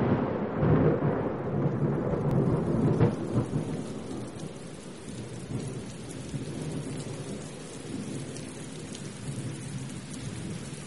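Heavy rain pouring onto trees and a corrugated metal roof, a steady hiss. A long rumble of thunder fades out over the first few seconds.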